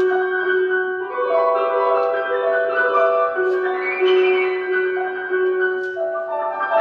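Grand piano played solo: a steadily repeated middle-register note under higher, shifting notes, with a quick rising run a little past halfway.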